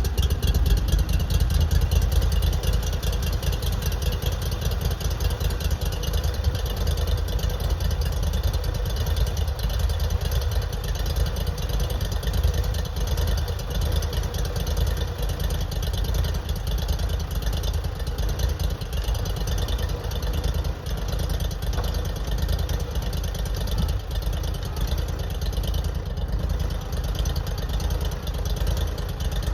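Argo amphibious ATV engine running steadily, a continuous low rumble.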